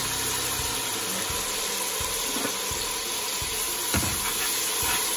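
Oil and fried onions sizzling steadily in a large aluminium pot as sugar and spices are tipped in, with one knock of the metal spatula against the pot about four seconds in.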